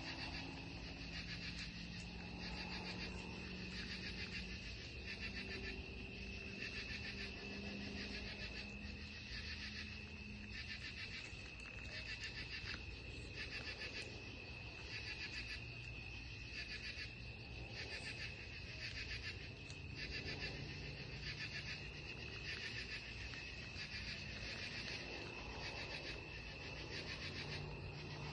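Night insect chorus: a steady high trill under a pulsing call that repeats about once a second. A faint low hum dies away about halfway through.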